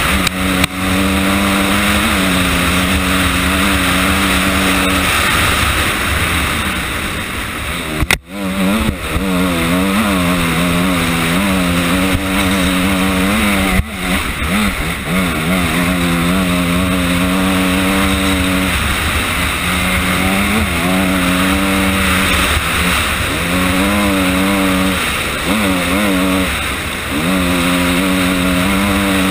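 Honda CRF250R dirt bike's single-cylinder four-stroke engine pulling along a trail, its pitch holding steady for stretches then rising and falling with the throttle and gear changes, with wind rushing over the helmet-mounted microphone. The sound breaks off sharply twice, about eight and fourteen seconds in.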